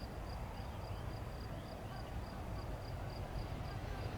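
Steady low rumble with a thin, high chirp repeating about three times a second.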